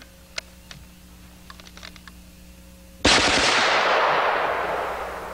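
Gunfire from a Mech Tech CCU carbine conversion chambered in .460 Rowland: a sudden loud report about three seconds in, trailing off in a long fading tail. A few faint clicks come before it.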